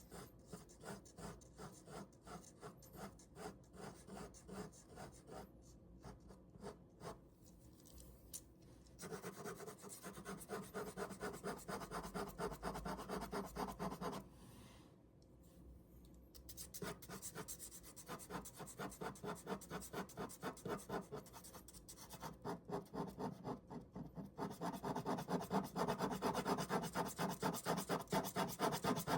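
Ballpoint pen scratching on paper in quick, repeated back-and-forth shading strokes. The strokes break off briefly about halfway through and grow louder near the end.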